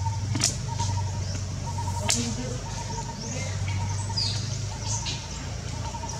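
Outdoor background of a steady low hum and a repeating pulsing high tone, with a few short bird chirps and two sharp cracks about a second and a half apart near the start.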